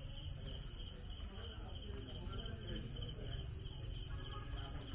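Insects, crickets by the sound of it, chirping in a steady pulsing chorus, with faint voices in the background.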